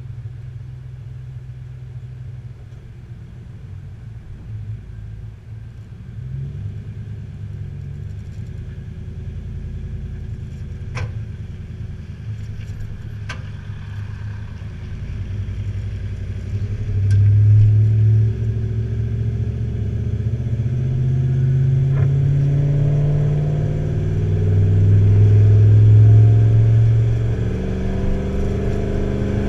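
Tow vehicle's engine running under the load of a boat trailer. It gets louder and climbs in pitch from about halfway in as the vehicle accelerates, with a few sharp ticks or rattles scattered through.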